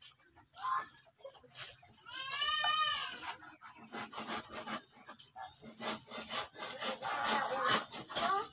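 A goat bleats once, a single drawn-out call about two seconds in that rises and then falls in pitch. Quieter scuffing and rubbing sounds follow.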